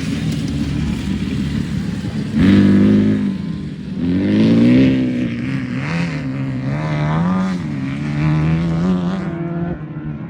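Off-road race car engine revving, its pitch rising and falling several times as the throttle opens and closes.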